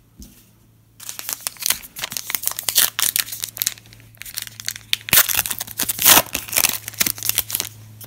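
A 2018 Panini Classics football trading-card pack being torn open by hand, its wrapper crackling and crinkling as it is ripped and pulled apart, starting about a second in and stopping just before the end.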